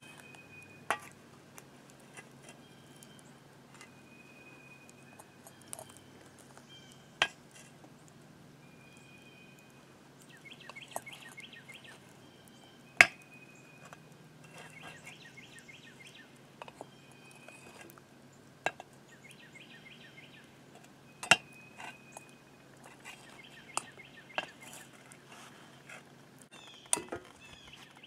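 Steel ladle clinking against a cast-iron melting pot and a metal muffin tin as molten lead is ladled into the tin's cups to cast ingots: a string of single sharp clinks a few seconds apart, the loudest about halfway through.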